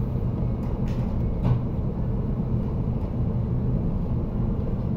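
Steady low background rumble, with two faint light clicks about one and one and a half seconds in.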